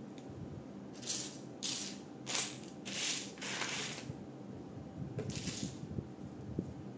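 Small plastic LEGO pieces rattling as a hand rummages through them: a run of short rattling bursts from about one to four seconds in, and one more about five seconds in.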